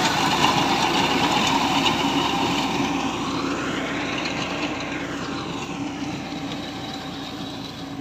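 Tractor engine running steadily while its front-mounted reaper cuts wheat, growing steadily fainter as the tractor pulls away.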